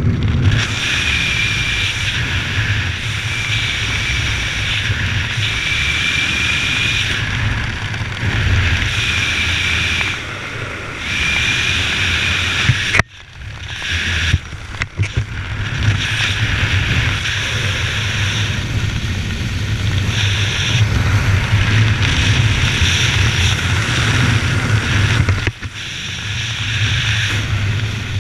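Wind rushing over the microphone of a skydiver's camera while flying under an open parachute, with a faint high whistle coming and going in the first half. The noise drops out suddenly for a moment about halfway through, then returns.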